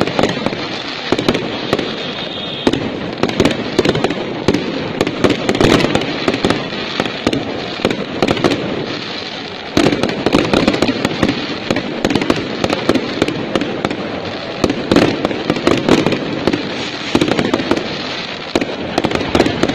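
Aerial fireworks bursting overhead in a dense, irregular run of sharp pops and bangs, many each second, over a continuous crackling hiss.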